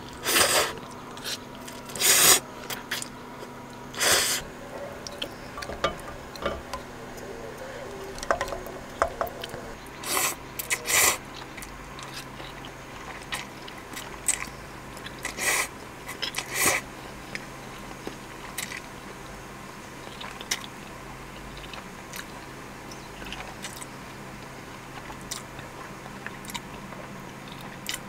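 A person slurping ramyeon noodles and chewing, in short slurps spread through the stretch, over a faint steady hum.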